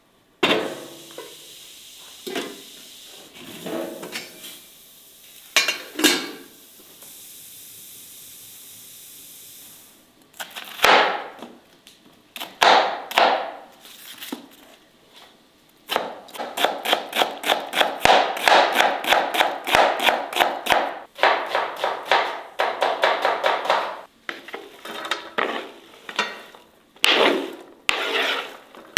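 A kitchen knife chopping onion on a wooden cutting board: a few separate cuts, then a long run of quick, even strokes at about five a second, then more chopping. Near the start an aluminium pot and its lid clank a few times.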